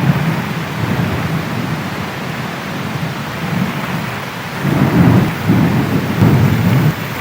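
Heavy rain falling steadily, with thunder rumbling under it that swells louder in two long rolls from a little past halfway.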